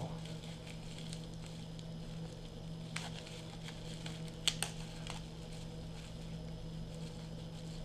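Plastic bubble-wrap packaging crinkling and crackling in the hands as a small item is unwrapped, with a few sharp crackles, the loudest about halfway through. A steady low hum runs underneath.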